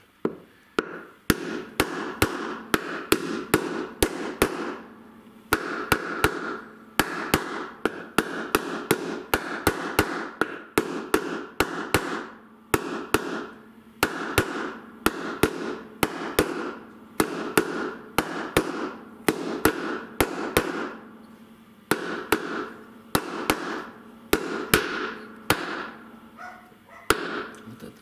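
Steel hammer blows on a driver seating a new drum bearing into the hub of a washing machine tub, about two to three ringing knocks a second in runs with short pauses. The ring of the blows goes dull once the bearing is fully seated.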